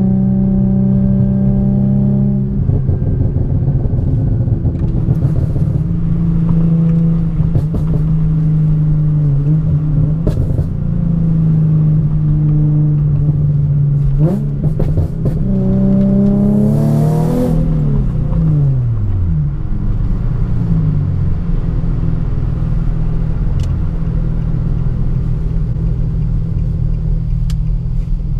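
Infiniti G37's 3.7-litre V6 with an aftermarket ISR exhaust, heard from inside the cabin while driving: a steady engine drone. A little past halfway the revs climb and then drop quickly, with a brief rush of noise at the peak.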